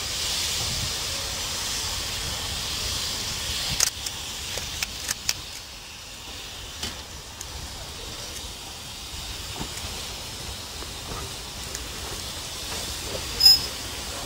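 BR Standard Class 9F 2-10-0 steam locomotive hissing steam, the hiss fading after about four seconds, then scattered metallic clanks as it moves slowly off. Near the end there is one short, loud, ringing metallic squeal.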